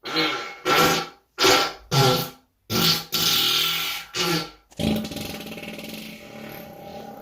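A person farting: a quick run of about six short farts, then one long drawn-out fart that slowly fades.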